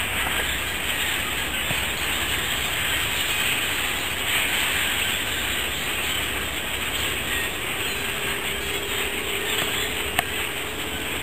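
A large flock of common grackles calling all at once from the treetops: a steady, dense din of many overlapping calls.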